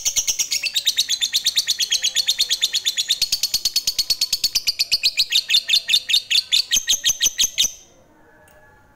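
Lovebird's long, fast chattering call ("ngekek"): a steady run of sharp chirps at about ten a second, which breaks off abruptly near the end.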